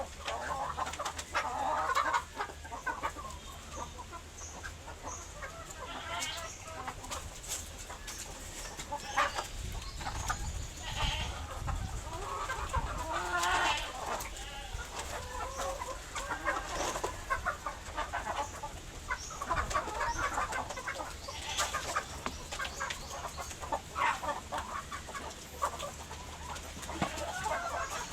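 A flock of chickens clucking and calling over one another without pause, with scattered sharp clicks.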